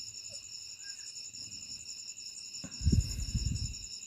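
Crickets chirping steadily, a rapid high pulsing that repeats several times a second. A brief low rumble, about a second long, comes near the end.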